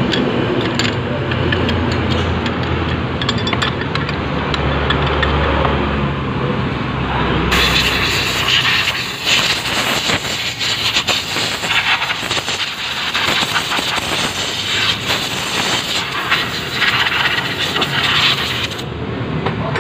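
A motor vehicle engine hums steadily for the first several seconds. Then comes a long stretch of brushing, scraping and clinking as metal CVT parts are scrubbed and handled in a tray.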